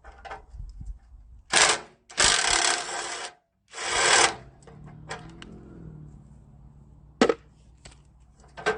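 Three short bursts from a power impact tool run on an old factory bolt in a car's radiator support, with a sharp metal click or two near the end.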